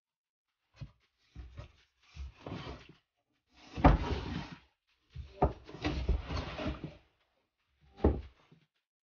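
Cardboard shipping box and foam packing being handled: a series of scraping, rustling bursts with dull knocks, loudest about four seconds in.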